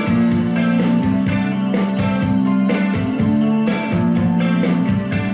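Guitar music with a steady beat playing through a pair of vintage Acoustic Research AR-2a loudspeakers.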